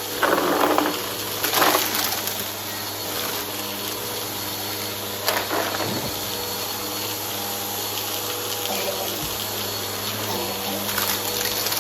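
Vacuum cleaner with a brushroll running steadily, crackling in short bursts as it sucks up a pile of crunchy debris near the start, with a sharp click about five seconds in.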